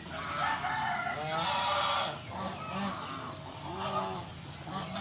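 Domestic poultry calling, several calls one after another.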